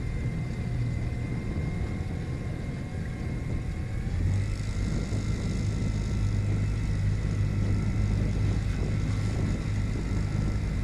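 Brand-new Mercury 15 hp Pro Kicker four-stroke outboard running while still being broken in, pushing the boat along at low throttle. About four seconds in it is throttled up a little, and the engine note rises and gets louder.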